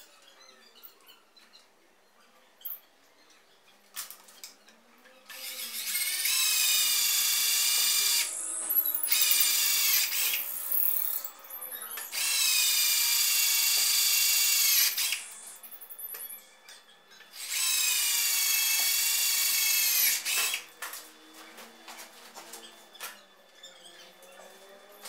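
Cordless drill boring through a thin metal plate, running with a high whine in four bursts of two to three seconds each, starting about five seconds in. Small scrapes and knocks come before and after the bursts.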